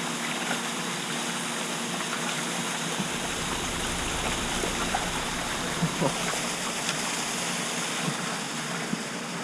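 Steady rush of moving water with a faint low steady hum under it, and a few light knocks about six seconds in.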